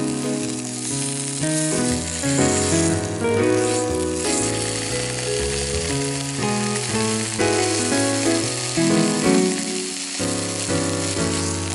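Steak sizzling in a frying pan glazed with sauce, as the pieces are turned with chopsticks. Background music with a bass line and changing chords plays over it.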